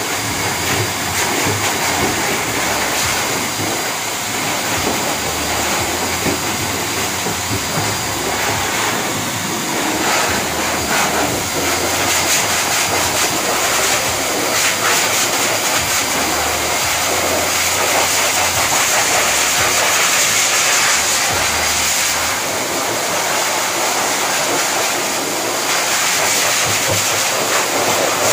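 Pet force dryer (high-velocity blower) running steadily, blowing air through its hose: a loud, even rush of air with a thin high motor whine.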